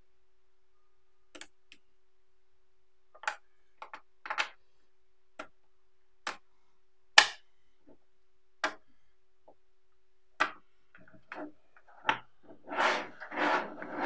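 5 mm magnetic balls snapping together as layers are stacked: a series of sharp clicks about a second apart, the loudest about seven seconds in. Near the end they give way to a denser rattling clatter of many balls.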